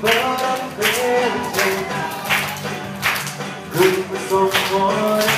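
Upbeat music with a steady beat, about one beat every three-quarters of a second, and a melody line over it.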